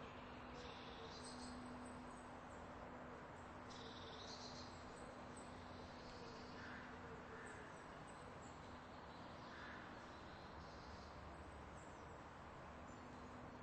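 Near silence: faint background hiss with a steady low hum.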